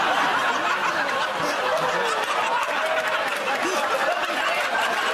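Studio audience laughing continuously, many voices chuckling and laughing over one another.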